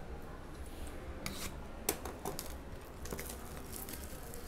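Plastic shrink wrap being torn and peeled off a sealed trading card hobby box: scattered crinkling and tearing of thin film.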